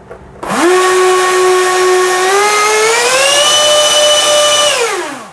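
Twin electric ducted fans of an SR-71 Blackbird RC model jet spooling up on the bench: a loud whine with rushing hiss that rises in pitch partway through, holds, then winds down and stops near the end.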